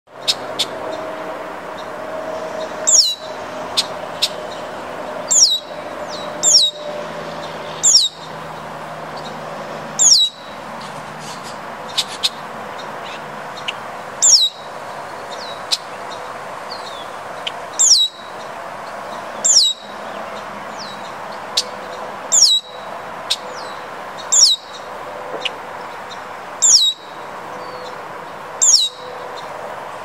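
Red-winged blackbird calling: a short, sharp, high note that slides downward, repeated about every two seconds, over a steady low background noise.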